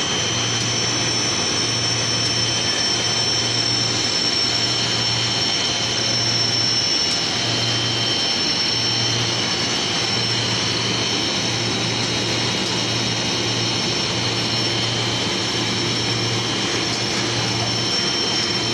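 PVC foam board extrusion line running: a steady machine noise with a high whine, and a low hum that keeps cutting in and out.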